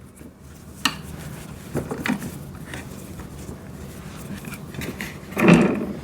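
Wrench and metal bolts on a wood chipper's wheel axle clinking and clicking as the bolts are tightened down, with scattered light clinks and a louder knock about five and a half seconds in.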